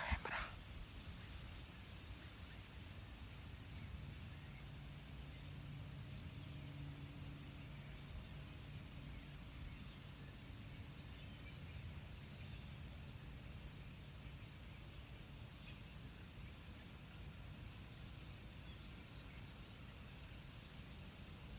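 Quiet woodland ambience: small birds chirping faintly and high over a steady low rumble, with a faint low hum in the first half. A brief rustle of handling at the very start.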